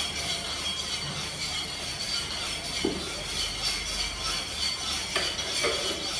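Ceramic bowls being washed by hand in plastic basins of water, with a few short splashes and clinks of the bowls, over a steady mechanical whir.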